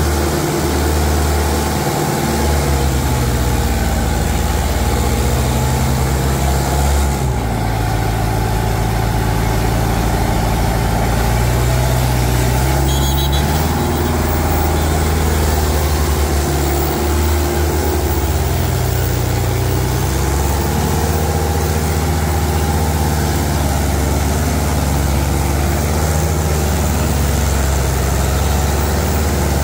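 Diesel tractor engines running loud and steady under the load of a tractor pulling contest, the engine note shifting up and down a few times.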